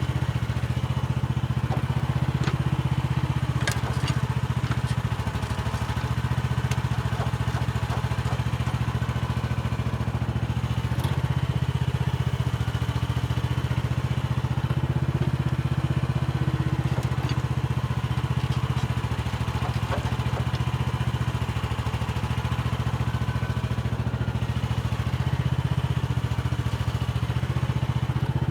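A mini excavator's petrol engine running steadily under working load, its level swelling slightly now and then, with scattered sharp clicks and clatter from the bucket working soil and clods.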